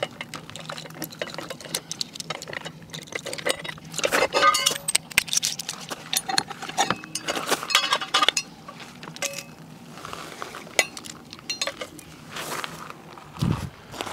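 Metal clinking and clattering as a caravan hitch lock is handled and taken off the Al-Ko hitch head, with the loudest ringing rattles about four seconds in and again about eight seconds in.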